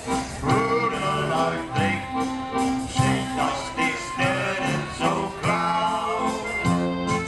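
Live oompah band playing: accordion and tuba, the tuba's bass notes bouncing on a steady beat under the tune, with a man singing.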